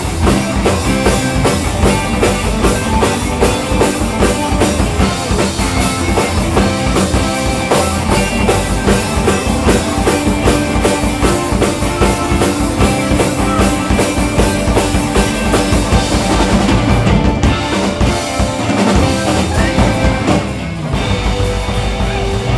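Live alt-country rock band playing: electric guitars, electric bass, acoustic guitar and a drum kit over a steady beat.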